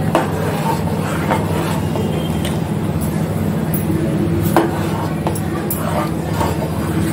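Metal ladle stirring boiling curry gravy in a metal pot, with a few sharp clicks of the ladle against the pot over a steady low hum.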